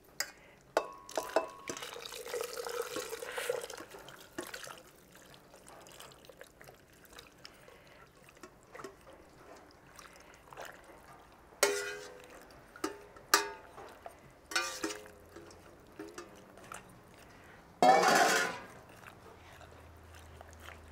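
Cooked guajillo chiles and their broth being scraped from an enamelware pot into a glass blender jar: wet sloshing and dripping, with a few sharp, ringing knocks against the pot and a louder clatter near the end.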